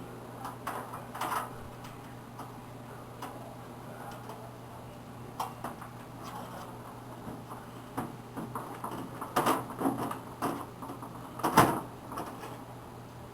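Scattered clicks, knocks and scrapes of a desktop computer system unit case being opened: its screws being unscrewed and the metal side panel handled, with a cluster of knocks late on and the loudest knock near the end. A steady low hum runs underneath.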